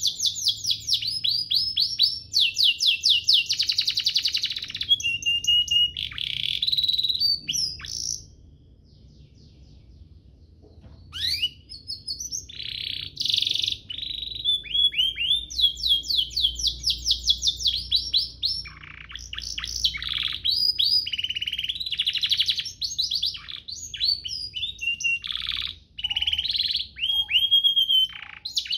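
Domestic canary singing a long song of rapid trills and rolling, sweeping phrases. It breaks off for about three seconds some eight seconds in, then starts again.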